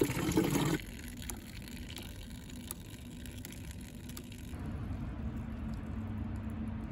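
Flush liquid gushing out of a Nissan Micra K11's cooling-system drain and splashing down, cut off abruptly less than a second in. After that only a faint steady low hum remains.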